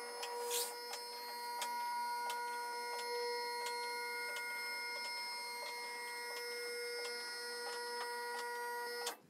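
Electric-hydraulic power unit of a two-post car lift running as it raises a vehicle: a steady, even-pitched motor whine with faint ticking, cutting off suddenly near the end.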